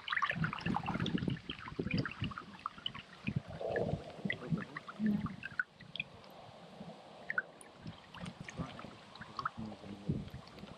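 Kayak paddle working the canal water: irregular splashes and trickling drips off the blades, easing off after about five seconds.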